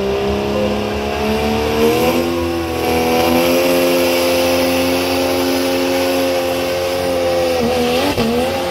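Dodge Ram's Cummins diesel engine at high revs under full load, pulling a weighted sled. The pitch climbs about two seconds in and then holds steady, with a brief dip and waver near the end.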